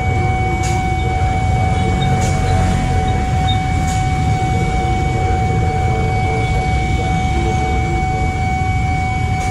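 Level-crossing warning alarm sounding one unbroken steady tone, over the low rumble of waiting motorcycles and an approaching KRL electric commuter train. A few faint clicks come in the first few seconds.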